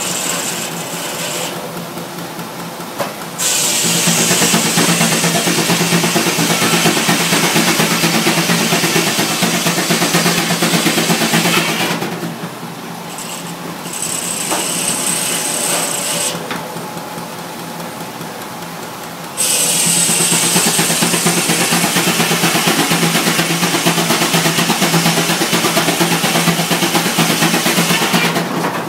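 Flat-belt-driven circular sawmill. The saw runs with a steady whir, then cuts through a log twice. Each cut starts suddenly and grows much louder and harsher for eight to nine seconds, once about three seconds in and again about two-thirds of the way through.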